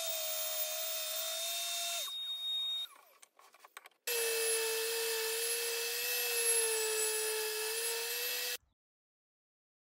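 A table saw runs while a tapering jig carries a wooden upright through the blade, cutting a taper. The steady whine comes in two stretches with a short quieter break between them. The second stretch is lower in pitch and wavers under the cut, and it cuts off suddenly near the end.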